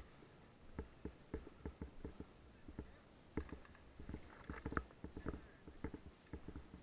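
Irregular soft thuds and rustling close to the microphone: footsteps and kit moving as a player walks, with a short burst of brushing about four and a half seconds in.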